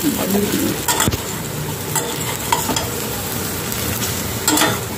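Fried chicken pieces sizzling in thick sauce in a metal pan while a metal spatula stirs them, with two sharp knocks of the spatula against the pan, about a second in and near the end.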